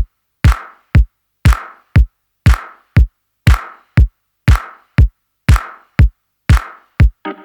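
Electronic dance track opening with a bare drum-machine beat at about 120 beats a minute: a deep kick on every beat, every second kick layered with a noisy clap-like hit. A sustained synth chord comes in near the end.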